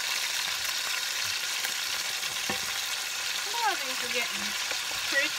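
Ground pork burger patties sizzling in butter in a nonstick skillet: a steady frying hiss, with faint ticks as a plastic spatula works around them.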